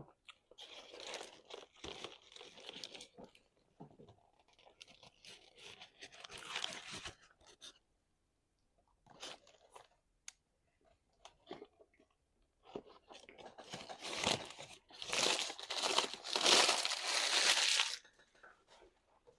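Close-miked eating: crisp crunching as food is bitten and chewed, in bursts with a few sharp clicks between them. The longest and loudest run of crunching comes in the last third.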